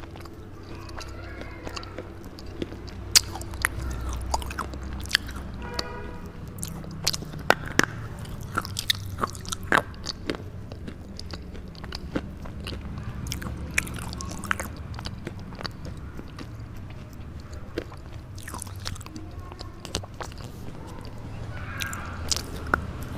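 Dry red slate bar being bitten and chewed close to the microphone: irregular sharp crunches a second or so apart, with steady grinding chewing between them.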